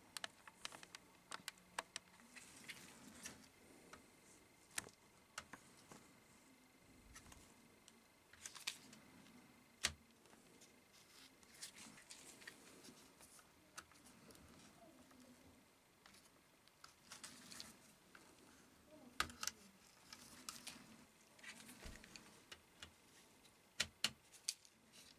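Quiet handling of an opened laptop during disassembly: scattered sharp clicks and taps of small plastic and metal parts, with soft scraping now and then.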